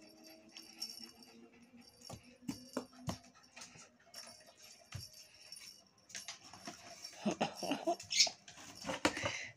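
A dog whimpering and whining in short rising-and-falling sounds in the last few seconds, among scattered clicks and knocks.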